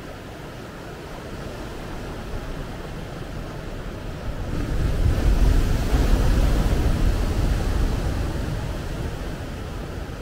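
Ocean surf on a sandy beach beside rocks: a steady wash, then a wave breaks about halfway through with a loud, deep crash that slowly fades as its foam spreads up the sand.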